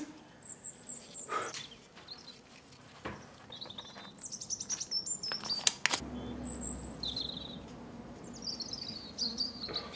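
Birds chirping in short, quick phrases that fall in pitch, twice, with a few faint knocks; a low steady hum comes in about halfway through.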